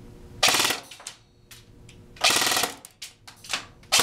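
Custom-built airsoft M4 firing rapid bursts at point-blank range into mesh goggles on a foam mannequin head, the BBs rattling against the mesh. Two short bursts, with a third starting at the very end.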